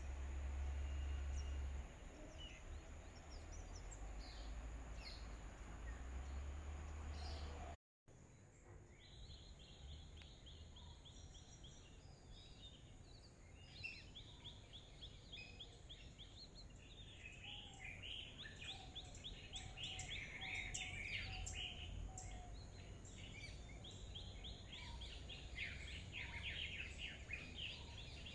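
Wild birds calling: scattered chirps at first, then from about nine seconds in a fast chattering trill repeated again and again, with other songs and whistles over it. A low rumble sits under the first couple of seconds, and the sound drops out for a moment near eight seconds in.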